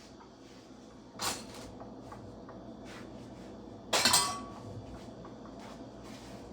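Kitchenware being handled: two sharp clinks, a lighter one about a second in and a louder one about four seconds in that rings briefly.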